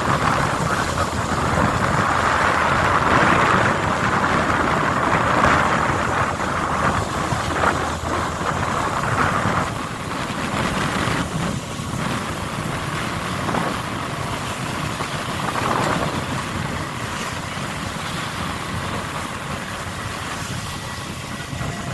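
Steady engine and machinery noise aboard a longline fishing boat, louder for the first half and then settling lower.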